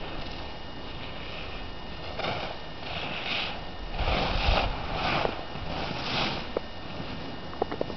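Skis carving on groomed snow: a scraping swish of the edges with each turn, about one a second, growing louder and loudest about four seconds in as the skier passes close. A few short sharp clicks near the end.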